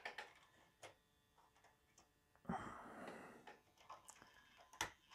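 Faint small clicks and taps of plastic model-railway stock being handled on the track as a TT:120 locomotive is pushed against its coach to couple it, with a soft breathy rush about two and a half seconds in.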